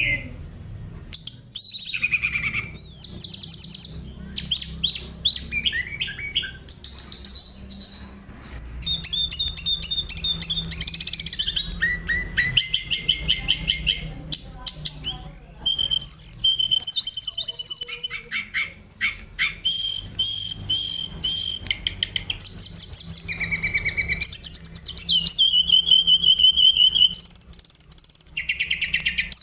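Oriental magpie-robin (kacer) singing a long, varied song of whistled phrases, rapid trills and chattering notes, with hardly a pause.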